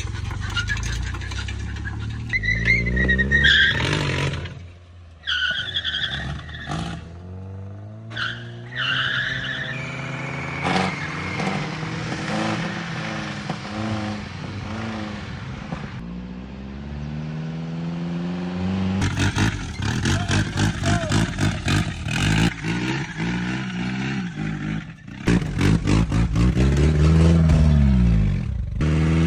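Nissan Hardbody truck's KA24E four-cylinder engine revving and pulling hard, its pitch rising and falling over several pulls, with a few abrupt breaks. The engine is believed to have a rod knock.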